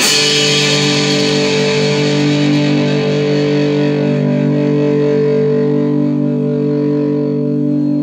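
Four-string amplified cigar box guitar: a chord struck once and left to ring, slowly fading away.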